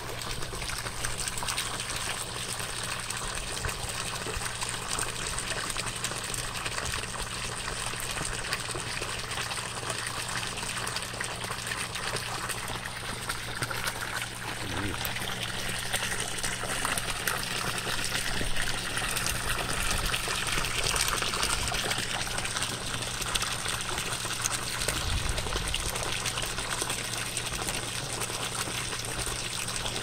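Clear mountain-valley stream water flowing and rushing steadily, growing a little fuller about halfway through before easing again.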